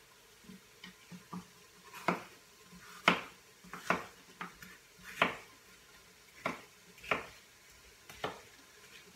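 Chef's knife chopping a green pepper into chunks on a cutting board: a string of irregular, sharp knocks of the blade on the board, getting going about two seconds in, roughly one every half second to second.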